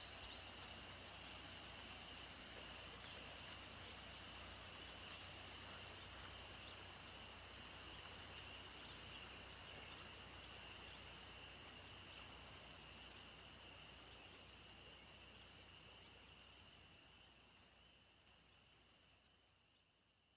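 Faint outdoor ambience: a steady, unbroken high-pitched insect trill over a soft hiss, fading away about three-quarters of the way through.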